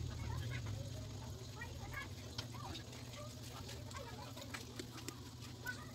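Carrot and onion strips frying in a steel wok, with scattered faint crackles over a steady low hum. Short clucking calls sound in the background throughout.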